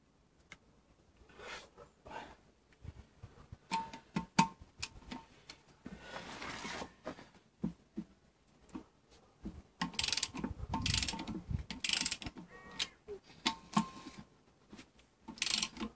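Ratchet wrench with a 9/16 socket clicking in short rasping runs, with sharp metal clinks in between, as the bolts holding a Land Rover Defender front brake disc to its hub are worked loose.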